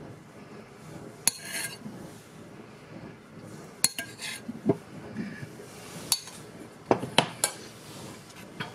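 Metal spoon clinking against a stainless steel saucepan while aspic jelly is spooned from it: several sharp, separate clinks spread through a quiet background.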